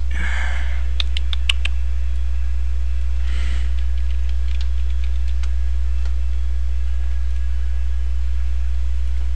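A few computer keyboard and mouse clicks: a quick cluster about a second in and fainter ones a few seconds later, over a loud steady low electrical hum.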